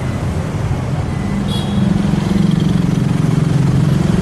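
Street traffic with a motor vehicle's engine running close by, its low hum growing louder about a second and a half in and staying steady.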